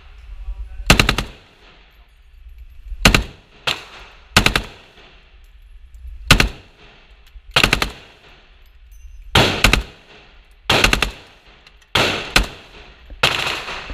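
A shoulder-fired long gun firing in an indoor shooting range. There are about nine loud reports a second or two apart, each ringing off the range walls.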